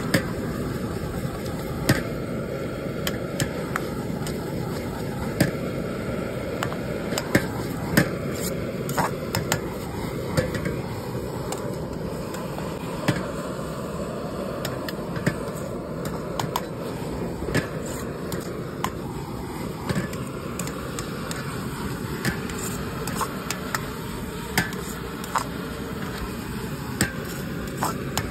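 A steel ladle knocks and scrapes against a wok as chow mein noodles are stir-fried, with sharp clanks every second or two. Under it runs the steady low rush of the gas burner.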